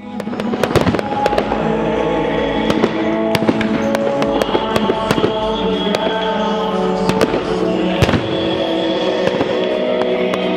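Fireworks display: a rapid run of sharp bangs and crackles from bursting shells and ground fountains, the biggest bang about eight seconds in, over loud music playing throughout.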